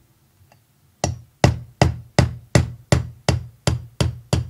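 Plastic-faced hammer tapping a roll-pin punch, driving the firing-pin roll pins out of a SIG Sauer P230 pistol slide: about ten sharp taps, roughly three a second, starting about a second in.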